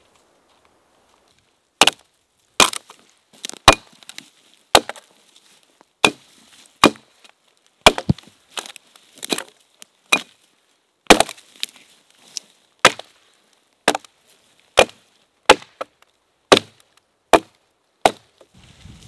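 Homemade axe chopping into a dead, weathered fallen log. Sharp woody blows land about once a second, starting about two seconds in, and some are followed by a quick second knock.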